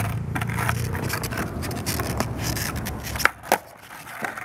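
Skateboard wheels rolling on asphalt with a steady rumble and scattered clicks. A little over three seconds in come two sharp clacks as the board hits the pavement in a 180 attempt, and then the rolling stops.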